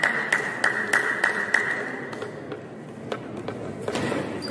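Celluloid-type table tennis ball clicking on bats and table: quick, evenly spaced taps about three a second for the first second and a half, then fewer, irregular hits as a rally is played.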